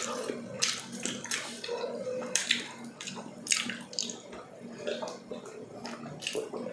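Wet, sticky chewing and lip-smacking of collagen-rich balbacua beef stew eaten by hand, in irregular smacks and clicks.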